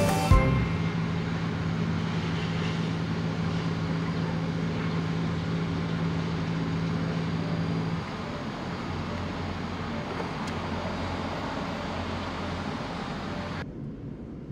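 Outdoor town ambience: distant road traffic under a steady low hum, the hum stopping at a cut about halfway through. Near the end it changes to the muffled road noise of a moving car heard from inside the cabin.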